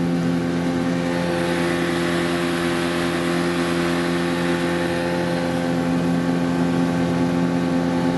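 Motorboat engine running steadily at moderate revs as the boat moves along, held back because the engine is still being run in. A constant hum with no change in pitch.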